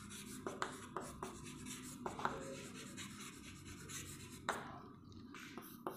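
Chalk writing on a chalkboard: short scratching strokes and light taps as words are written, thinning out near the end.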